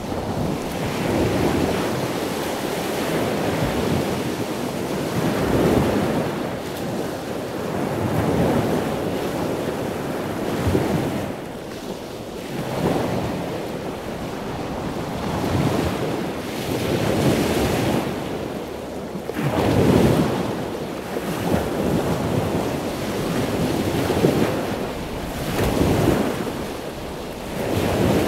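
Small waves breaking and washing up a sandy shore in shallow surf, the rush swelling and falling every two to three seconds, with wind rumbling on the microphone.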